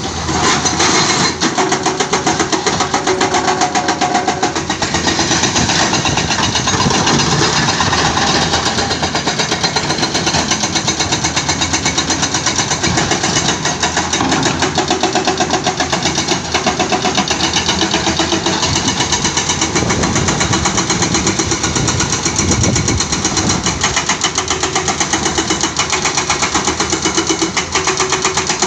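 Diesel engine of a CAT 320D hydraulic excavator running steadily under load as it digs, with a fast, even throb.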